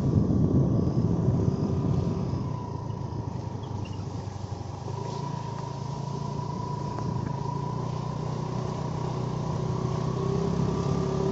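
Engine and road noise from a moving vehicle as it drives along. The engine eases off about two seconds in and builds again near the end.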